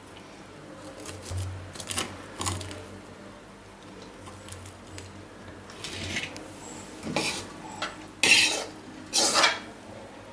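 Metal spoon clinking and scraping against a cooking pot as rice is mixed and scooped. There are a few light clinks early, then four short, louder scrapes in the second half.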